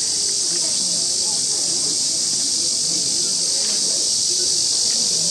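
Loud, steady high-pitched chorus of summer cicadas, with faint voices murmuring beneath.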